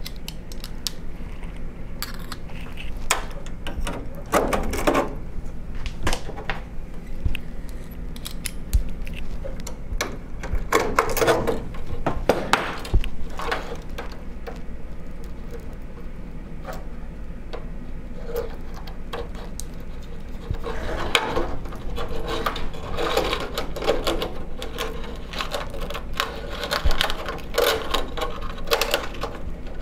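Hands handling wiring and fitting a small plastic-domed sensor module onto its aluminium bracket: cables rustling and rubbing, with scattered small clicks and knocks, busier in the second half.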